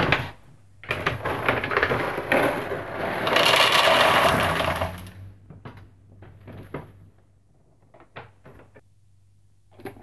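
Dog food being prepared in a bowl: a sharp clatter, then several seconds of dense crackling and rattling, loudest in the middle, thinning to scattered light clicks.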